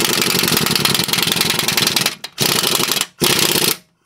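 Impact wrench hammering as it snugs up the lock nut on a camber bolt at a front strut. It runs for about two seconds, stops, then gives two short bursts near the end.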